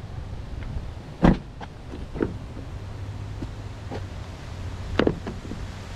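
A pickup's rear passenger door shut with a solid thump about a second in, then lighter clicks and a sharp snap near the end from the fuel filler door being handled, over a steady low hum.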